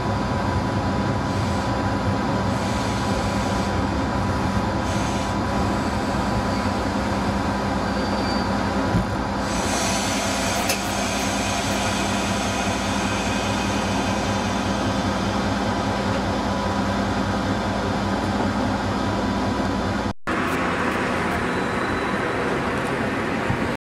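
A ČD class 854 diesel railcar heard from the driving cab, rolling at low speed. Its engine and running gear make a steady running noise with a constant hum. The sound drops out for an instant about twenty seconds in, then similar steady running noise resumes.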